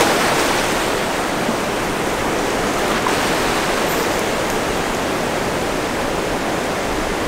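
Steady wash of ocean surf breaking and running up a sandy beach, an even rushing noise with no distinct events.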